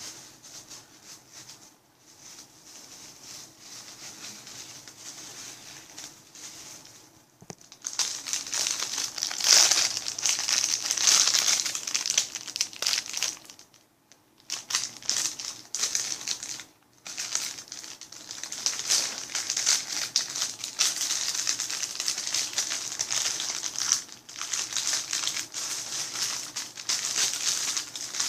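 Plastic packaging crinkling and rustling as it is handled, likely the bags that squishy toys come in. It is soft for the first several seconds, then louder, with a couple of short pauses past the middle.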